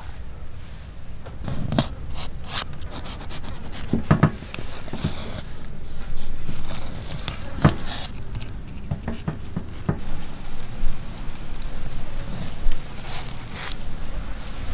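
Knife slashing lines into a large raw fish: irregular scrapes, with a few sharper knocks of the blade.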